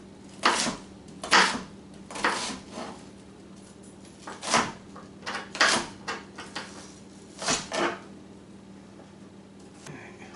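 Chef's knife rough-chopping an onion on a plastic cutting board: sharp, irregular knocks of the blade on the board, roughly one a second, stopping about eight seconds in.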